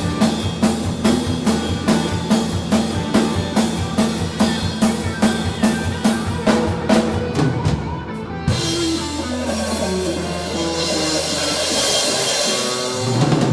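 Rock band playing live, with the drum kit beating out a steady rhythm. About eight seconds in the beat stops and a held chord rings out over a long cymbal wash. The band kicks back in near the end.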